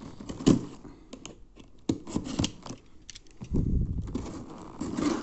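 Cardboard box being opened by hand with a utility knife: scattered taps and knocks on the cardboard, a sharp knock about half a second in, and a longer scraping rustle a little past halfway as the packing tape is cut.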